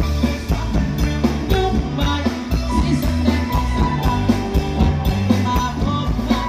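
Live band music amplified through a stage PA: a male singer over electric bass, guitar and a steady drum beat.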